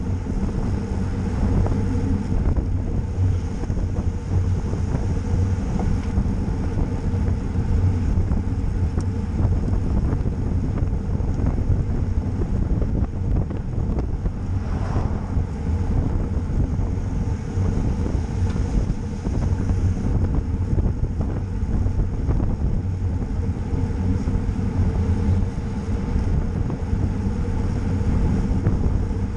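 Steady low rumble of wind on the microphone with the tyre noise of a road bicycle on the move.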